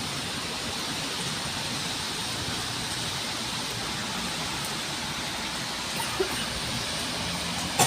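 Steady, even outdoor background hiss, with a small click about six seconds in.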